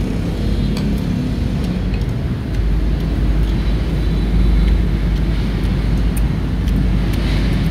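A steady low rumble with a few light clicks.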